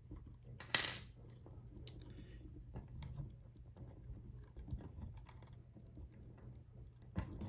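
Faint small clicks and taps of hard plastic drone parts being handled and pinched loose, with one sharper click about a second in and another near the end. A low steady hum runs underneath.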